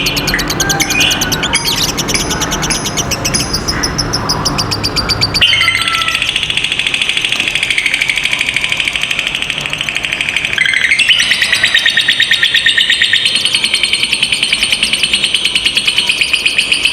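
Lovebirds giving their long 'ngekek' song: fast, high, rattling chatter kept up in long runs, with a brief change about five seconds in and a short break near two-thirds of the way. A lower rough noise sits under the first few seconds.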